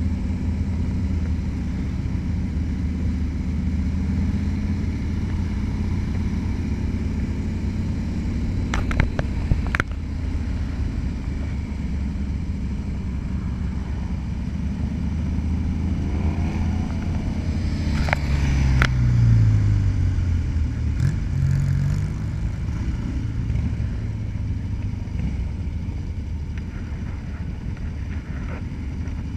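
Motorcycle engine running steadily while riding, heard from the bike's handlebars with rumbling wind noise. About two thirds of the way through, the engine note rises and then falls, the loudest part, with a few sharp clicks around it.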